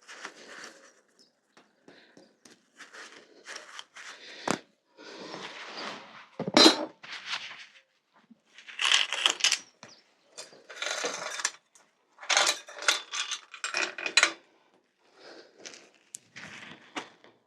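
Crusty steel bicycle chain clinking and rattling in irregular bursts as it is worked off the bike, with scattered sharp metal clicks.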